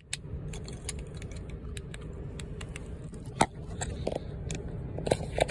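Light clicks and handling noise from a car key fob's plastic casing and metal key blade being worked in the hands, over a steady low rumble. The sharpest click comes about three and a half seconds in, with a few more near the end.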